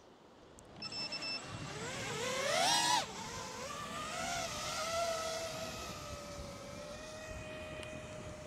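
FPV quadcopter's brushless motors and propellers: a short electronic beep about a second in, then the motor whine rises sharply in pitch as the quad takes off and drops suddenly about three seconds in. It then settles into a steady buzzing whine that slowly falls in pitch and fades as the quad hovers and flies away.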